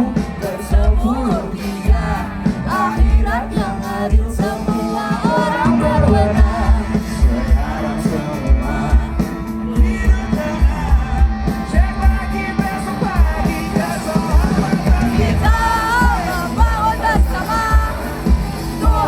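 Band music with a voice singing over a steady drum beat.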